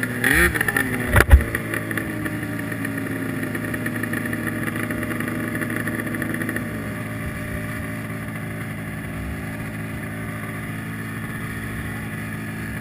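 Arctic Cat ZR700 snowmobile's three-cylinder two-stroke engine, blipped briefly at the start and then idling steadily, its idle dropping a little lower about seven seconds in. A sharp thump about a second in is the loudest sound.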